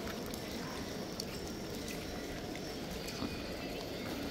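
Busy outdoor crowd ambience: a steady low hubbub with scattered light clicks and footfalls.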